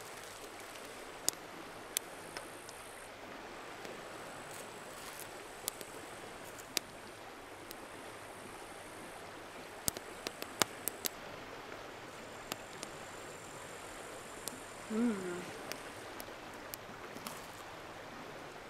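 Steady rushing outdoor background with scattered sharp crackles and pops, and one short hummed "mmm" about fifteen seconds in.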